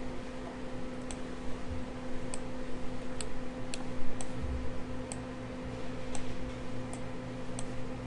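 Computer mouse clicking: about ten short, sharp clicks at uneven intervals, over a steady low electrical hum.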